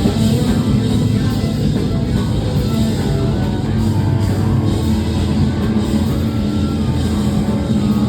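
A live rock band playing loudly: a dense, unbroken mix of guitars and drums with a heavy low end.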